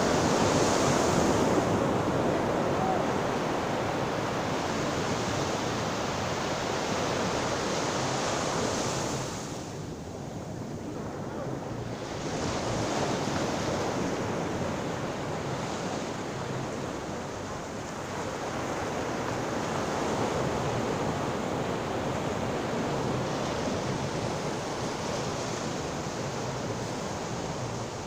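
Ocean surf washing onto the shore in a steady rush that swells and fades in slow waves, with a quieter lull about ten seconds in.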